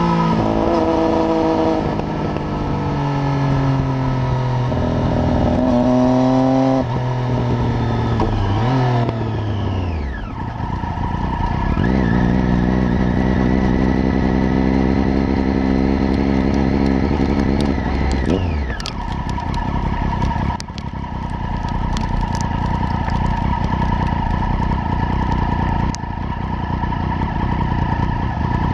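Triumph Daytona 675 inline-three engine through a baffle-less Arrow exhaust. Its note falls and rises in steps through gear changes, holds at a steady pitch for several seconds, then drops away about two-thirds through into a steadier, even sound.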